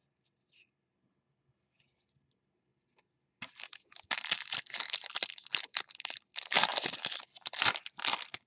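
About three seconds of near silence, then a Panini Select basketball card pack's foil wrapper crinkling and being torn open: rapid crackles and rips that go on for about five seconds.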